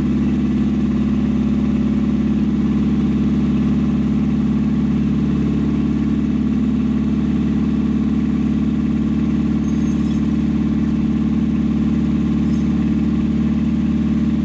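Datsun A-series four-cylinder engine running steadily with its head freshly rebuilt, on all four cylinders but not settled into a proper idle.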